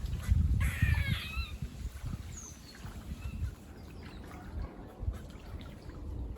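Squirrel calling: a quick burst of squeaky chirps about half a second in, lasting under a second, then a few fainter chirps. A low rumble of wind or handling noise sits under it.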